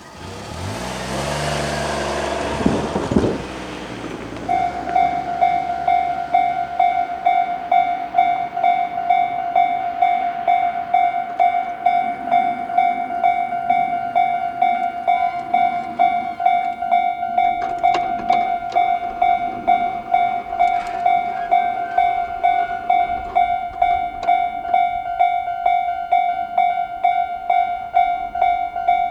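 A road vehicle passes with a rising engine note. About four seconds in, a Japanese level-crossing alarm starts ringing: JR's standard electronic warning tone, a steady high tone pulsing about twice a second, signalling that a train is approaching.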